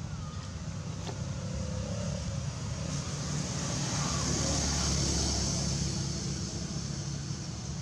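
A motor vehicle passing by: a low rumble with tyre hiss that builds to a peak about halfway through, then fades.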